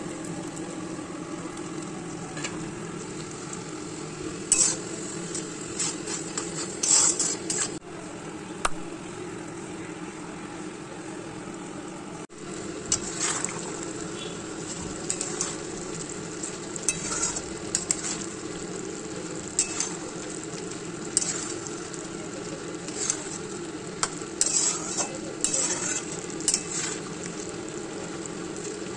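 Spice paste and pressure-cooked mutton sizzling in oil in a kadai, a steel spatula stirring and scraping against the pan with irregular clinks: the meat is being fried down (kosha) in the masala for a mutton curry.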